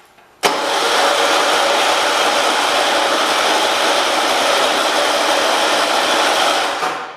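A riding lawn tractor's electric starter cranking the engine in one long steady run of about six and a half seconds. It starts abruptly and cuts off near the end, and the engine does not catch.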